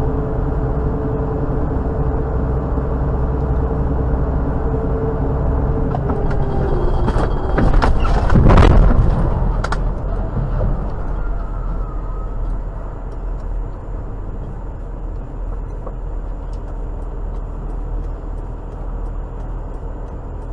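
Engine and road noise inside a vehicle's cab at highway speed, a steady drone, with a louder rush of noise that swells and fades about seven to ten seconds in as traffic passes close alongside.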